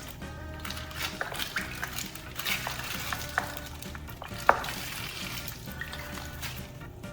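Crackling and crinkling of a water-filled plastic pouch being handled and broken open, with scattered sharp clicks, the loudest about four and a half seconds in, over soft background music.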